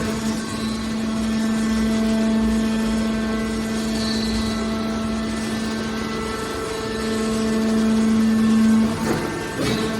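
Scrap metal hydraulic baler's power unit running with a steady, pitched mechanical hum that grows louder for a couple of seconds near the end, followed by a few short clattering noises.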